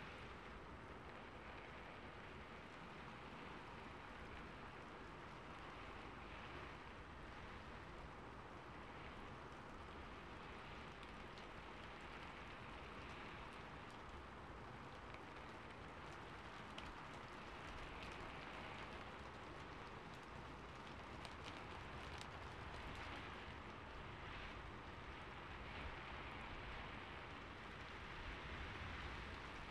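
Faint, steady rain falling on a rooftop, an even patter with the odd sharper drip, from a rain-on-rooftop ambience recording.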